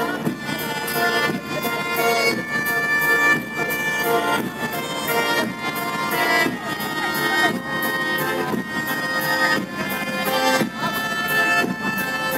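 Music with a steady beat and a held-note melody.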